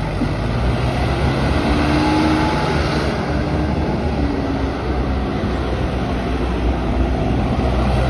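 ACE AX 124 backhoe loader's diesel engine running steadily under load as the machine drives and turns on loose gravel.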